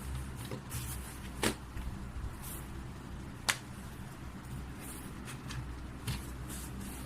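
Scattered sharp clicks over a steady low hum, two of them louder and about two seconds apart.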